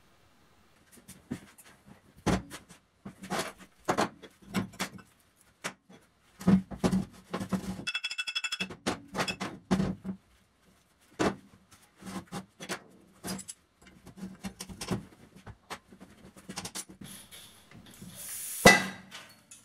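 Metal parts and hand tools being handled on a workbench: irregular clinks and knocks, one piece ringing briefly about eight seconds in, and a loud clank with a scrape near the end.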